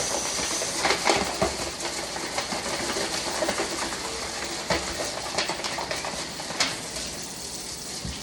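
Water running from a kitchen tap as a pan is rinsed, with a few clanks of the pan and dishes about a second in and again later.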